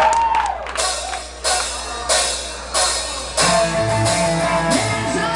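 Live metal band opening a song: full-band chord hits with drums and cymbals about every two-thirds of a second, then the whole band comes in with bass and a steady guitar riff about three and a half seconds in.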